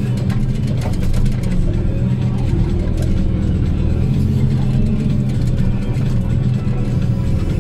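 Diesel engine of an HSM forestry machine running steadily under load, heard inside the cab, while the hydraulic crane swings a log; a few light knocks in the first few seconds.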